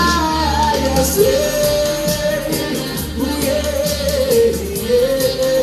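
Loud live reggae sound-system music: a heavy, deep bass line and steady hi-hat ticks under a vocalist singing long, held melodic lines on the microphone.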